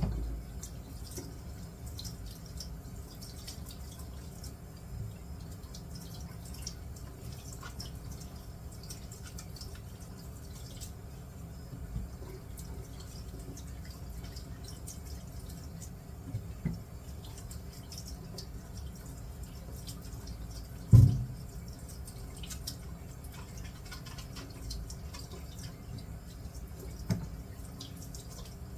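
Water from a kitchen tap running and dripping as apples are washed by hand in the sink, with scattered light knocks of the fruit and one louder thump about two-thirds of the way through.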